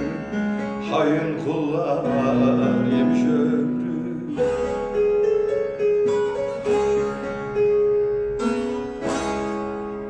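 A bağlama (long-necked Turkish lute) playing the closing instrumental phrase of a türkü. Its bright plucked notes are restruck about once a second from about four seconds in.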